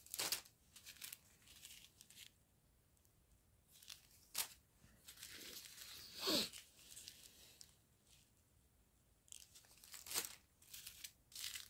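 Small plastic zip bags of diamond-painting drills crinkling and rustling as they are handled, in short scattered bursts with quiet gaps between.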